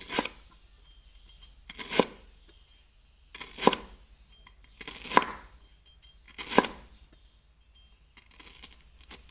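Lemongrass stalk sliced into thin rings with a heavy knife on a thick wooden chopping board: a short crunch through the stalk ending in a knock on the board, repeated about every one and a half seconds, six slices in all.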